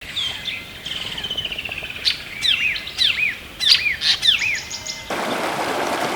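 Songbird singing: a rapid high trill, then a run of quick arched whistled notes. About five seconds in it cuts abruptly to the steady rush of creek water.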